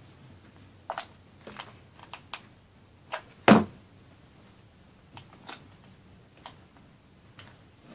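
Scattered small taps and clicks of craft materials being handled and set down on a work table, with the loudest knock about three and a half seconds in.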